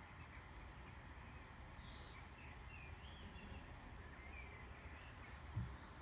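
Faint outdoor background noise with a few short, distant bird chirps, and a brief low thump near the end.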